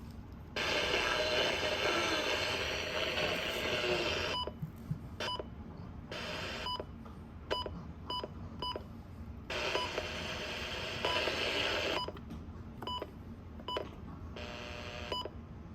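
Midland WR-300 weather radio's short electronic key beeps, a string of them as its buttons are pressed to set up the AM/FM radio, with two stretches of hissing static from its speaker, the first about half a second in and the second around ten seconds in.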